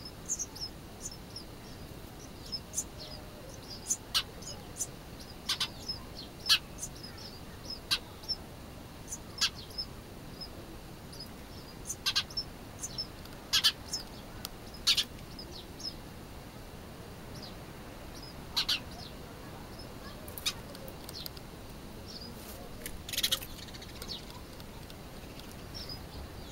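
Small birds nesting inside a hut chirping in short, sharp, high calls at irregular intervals, with chicks calling from the nest.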